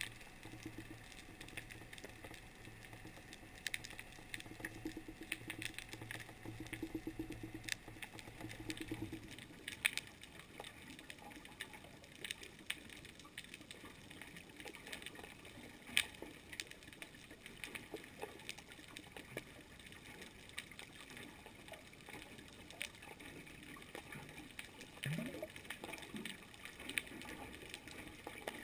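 Underwater ambience picked up through a camera housing: a steady wash of water noise dotted with many sharp crackling clicks. A low hum runs through the first third and stops, and a brief rising tone sounds near the end.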